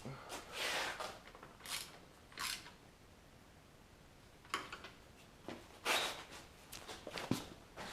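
Scattered short scrapes and rustles of car parts and tools being handled during work on the car's front end, about half a dozen, with a sharp click about seven seconds in.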